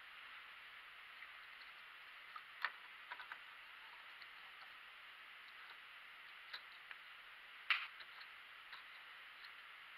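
Faint, scattered small clicks and taps of handling over a steady faint hiss, the loudest click about three-quarters of the way through.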